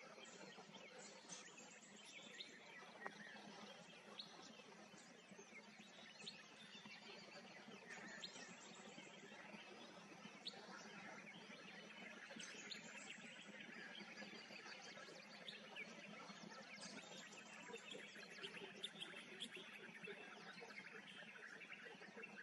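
Faint outdoor ambience with scattered short bird chirps and calls, a few high notes sliding down in pitch.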